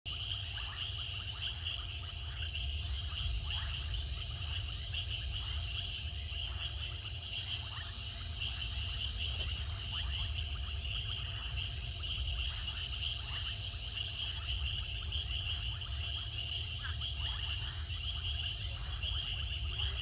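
Night chorus of crickets and other insects: a steady high trill with short bursts of pulsed chirping repeating about every second and a half, over a low steady rumble.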